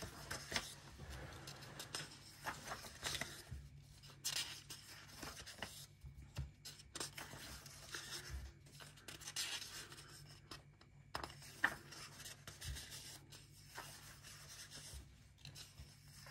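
Pages of a paperback colouring book being turned by hand one after another: soft, irregular papery swishes and rustles every second or two.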